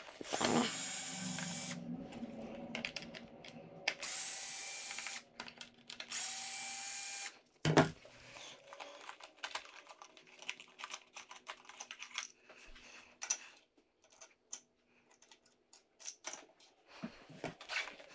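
Cordless power screwdriver whirring in two runs, the second about three seconds long, backing screws out of an RC truck chassis. A sharp knock follows, then a scatter of small clicks and taps from screws and plastic parts being handled.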